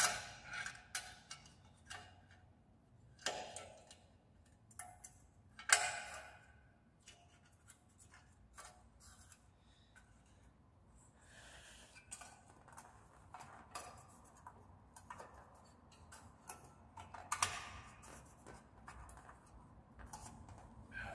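Small metal parts of a scooter's kick-start mechanism being handled and fitted by hand: scattered light metallic clicks and knocks, with a few louder clanks, the loudest about six seconds in.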